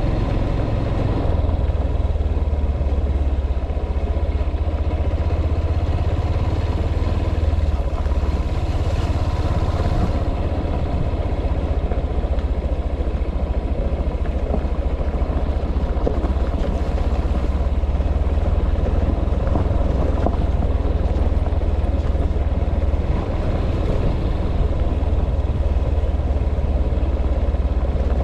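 A vehicle running, heard as a loud, steady low rumble with a noisy rushing haze above it.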